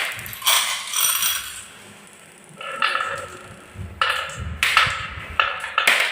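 Marbles running down a wooden marble run: a series of clicks and knocks, each with a short ringing tone. There is a lull about two seconds in. From about four seconds in comes a low rolling rumble with more clicks.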